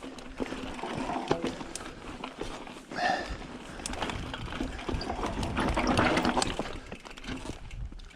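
A mountain bike rattling and clicking over a rough dirt trail, with the rider's heavy breathing heard in swells, one about 3 seconds in.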